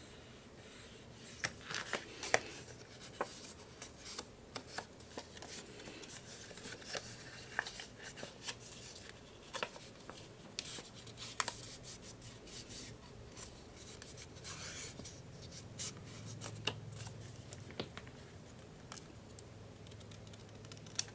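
Paper being handled and cut with scissors: irregular snips, clicks and rustles as paper tags are folded and trimmed at an angle.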